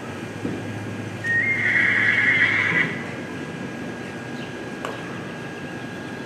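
A horse neighs once, a loud whinny lasting about a second and a half, starting a little over a second in.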